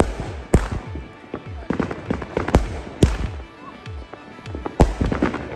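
Aerial fireworks going off: about six loud bangs at irregular gaps of half a second to nearly two seconds, with smaller crackling pops between them.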